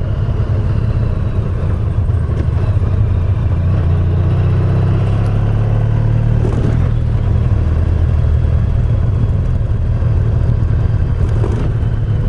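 Honda VFR1200X's V4 engine running steadily as the motorcycle rides along a winding road, heard from the rider's position with road and wind noise.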